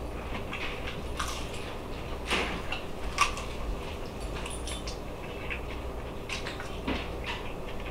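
A person eating a chicken wing close to the microphone: bites, tearing and chewing heard as scattered short wet clicks, the loudest about three seconds in, over a low steady hum.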